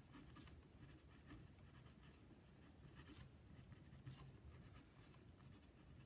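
Faint scratching of a pen writing on graph paper, in quick irregular strokes.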